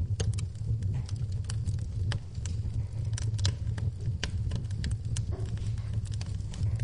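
Wood fire burning in a fireplace, crackling and popping in irregular sharp clicks over a steady low rumble of the flames.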